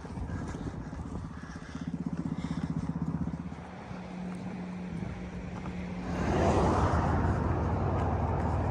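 A motor vehicle passing close by on the road: an engine hum that pulses, then holds steady, then a loud rush of tyre and wind noise about six seconds in that fades away near the end.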